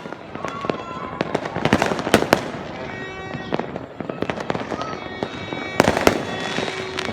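Fireworks going off: a steady run of sharp bangs and crackling firecracker pops, with a cluster of louder bangs about six seconds in.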